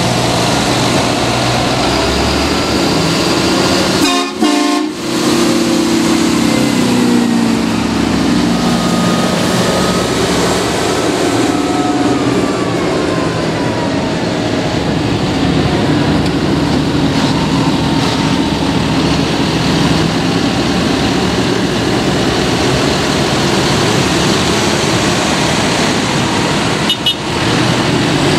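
Diesel engines of a convoy of modern farm tractors and a Unimog driving past one after another, a steady mix of engine and tyre noise with slow pitch glides as each machine goes by.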